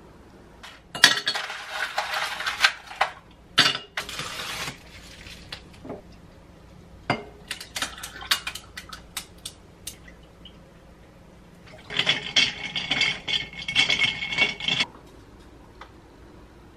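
Kitchen sounds while making iced coffee: ice and glassware clinking in short bursts, scattered clicks as coffee is poured over ice, and a longer stretch of rushing noise near the end.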